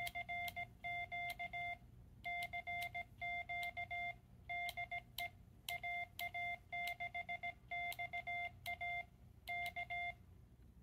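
Morse code sidetone from a Quansheng UV-K5 handheld radio's speaker as it transmits CW keyed from an external paddle: one steady mid-pitched beep switched into short and long elements (dits and dahs), in letter groups with short pauses, sending a CQ call.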